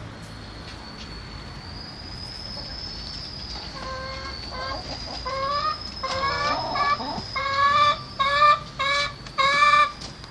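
Domestic hens in a coop clucking: a run of repeated drawn-out calls that starts a few seconds in, comes about one to two a second, and grows louder toward the end.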